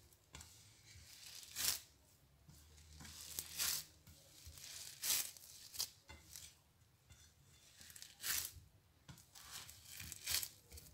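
Bare hands squeezing and pressing a moist mix of desiccated coconut and sweetened condensed milk on a ceramic plate. It makes a string of short, irregular scrapes about once a second.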